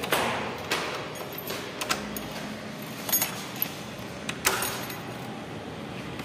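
Keys jangling and a lock clicking as a wooden door is unlocked and pushed open, with several sharp clicks and knocks, the loudest right at the start.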